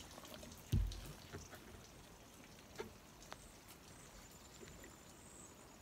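Handling a plucked, gutted chicken carcass on a plastic cutting board: a soft dull thump about a second in, then faint scattered small clicks and ticks as the bird is turned over and checked for leftover feathers.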